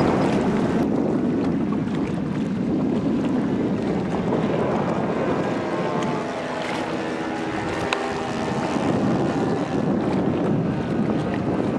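Twin-propeller RC model of a Canadair CL-415 flying overhead, its motors and propellers droning under heavy wind rumble on the microphone; around the middle the motor pitch rises and falls faintly as the model passes.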